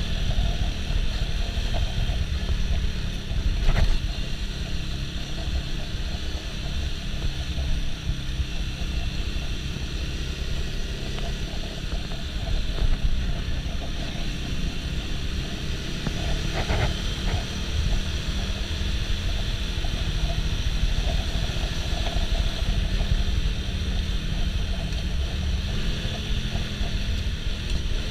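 Riding noise from a Suzuki Shooter FV110 underbone motorcycle under way: a steady low wind rush on the camera's microphone over the small single-cylinder engine, with a couple of brief knocks.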